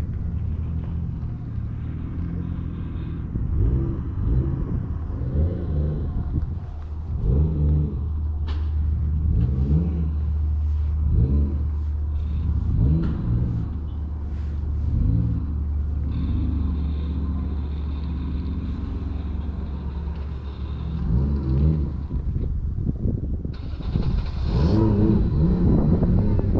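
Calico cat purring close to the microphone while being stroked: a steady low rumble that swells with each breath, about every couple of seconds. Near the end a rougher rustling noise rises over it.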